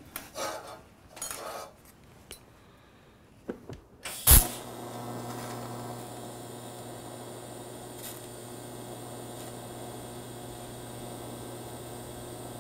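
A few rustles and clicks of handling, then a TIG welding arc strikes with a sharp crack about four seconds in. It runs on as a steady electrical hum with a hiss while filler rod is fed into the puddle.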